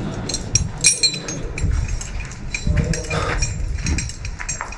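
Metal climbing gear clinking and jangling in irregular, ringing clicks, over the dull thuds of footsteps.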